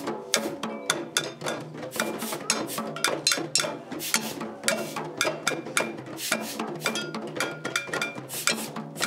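A group of hand drums, a djembe and large painted floor drums, struck with the hands in a steady, fast rhythm, with small hand percussion clicking along.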